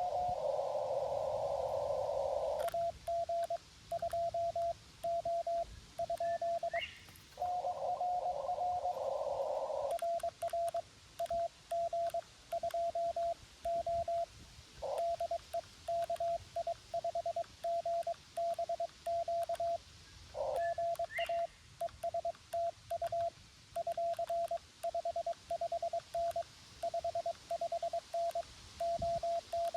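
Morse code through a Xiegu G90 HF transceiver. For the first few seconds, and again from about 7 to 10 seconds in, a station's keyed tone comes through band hiss. The rest is the operator's own sending, heard as a clean keyed sidetone of dots and dashes.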